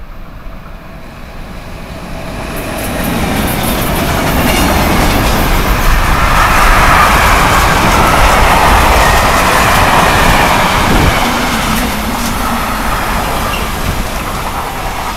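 Mixed freight train passing close by, hauled by an electric locomotive. The noise of the wagons running past builds over the first few seconds, is loudest about halfway through, and carries on with wheel clatter.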